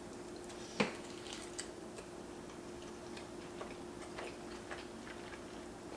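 Close-miked eating sounds: a single sharp bite sound about a second in, then soft, irregular little wet clicks of a mouthful of chicken sandwich being chewed.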